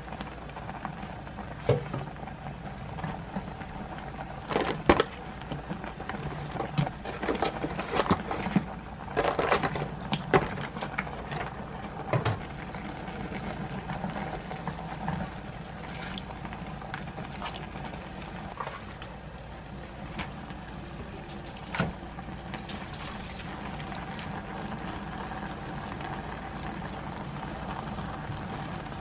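Broth simmering and bubbling in a pan on a gas stove over a steady hum, with scattered clinks and scrapes of a metal utensil against the pan as ingredients are added and stirred.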